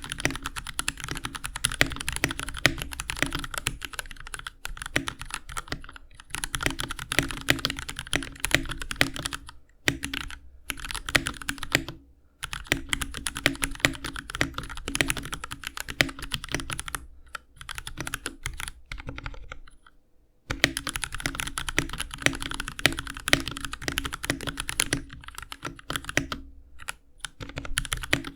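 Typing on a GMMK Pro mechanical keyboard with lubed Gateron KS3 Yellow linear switches, an aluminum plate and no case foam. Fast, continuous keystrokes run with a few short pauses, the longest about two-thirds of the way through.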